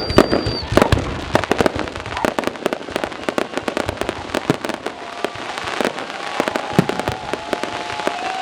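Fireworks going off in rapid succession: dense crackling and many sharp bangs, loudest in the first second, with a few held whistling tones over the second half.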